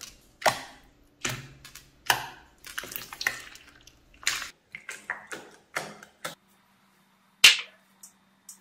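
Slime being pressed and squeezed by hand, giving a string of sharp, wet pops and clicks as air pockets in it burst, about one or two a second. The loudest pop comes about seven and a half seconds in.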